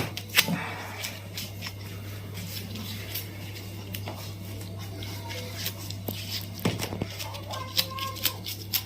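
Scattered sharp clicks and knocks while a chiropractor manipulates a patient's neck, over a steady low hum.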